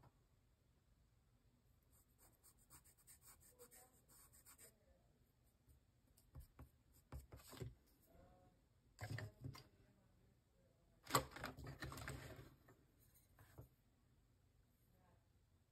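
Charcoal pencil scratching on paper in faint short strokes, with louder bursts of rubbing and handling noise about six, nine and eleven seconds in, the loudest around eleven seconds.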